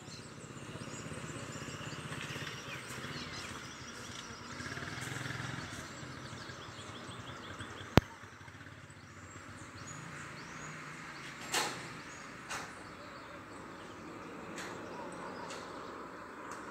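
Outdoor ambience of small birds chirping over a low background rumble. A single sharp click comes about halfway through, and a brief knock a few seconds after it.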